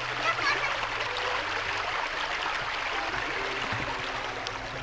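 Shallow stream running steadily over rocks at a ford.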